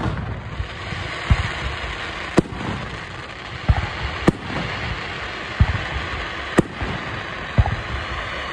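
Aerial fireworks shells bursting overhead: about eight sharp bangs, roughly one a second, some with a deep boom, over continuous background noise.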